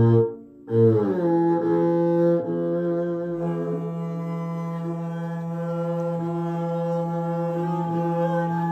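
Bowed long-necked string instrument playing in a low register. There is a short break in the sound under a second in, then a note slides down and settles into one long, steady low tone with many overtones.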